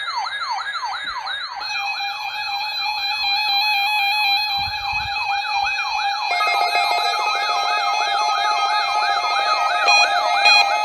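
Weather radio receivers sounding their alert alarms for a required weekly test. One radio gives a repeating rising siren sweep, about three a second. Others join with a steady tone about a second and a half in and with beeping tones about six seconds in, and the beeping grows busier near the end.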